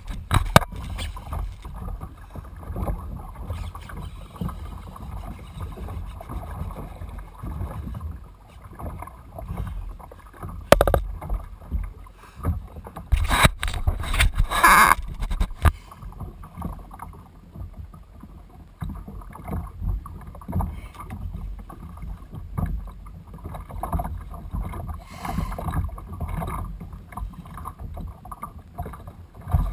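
Wind rumbling on a pole-mounted GoPro microphone above a kayak, with water sloshing against the hull. A few sharp knocks and splashes come about a third of the way in and again around halfway.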